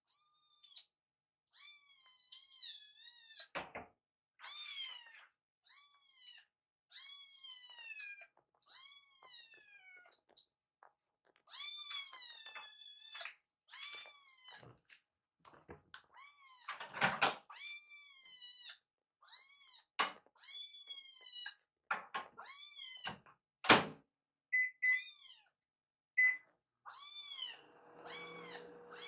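Hungry kittens meowing insistently, begging for food: high-pitched meows about one a second, each falling in pitch. A few sharp knocks come in between, the loudest near the end.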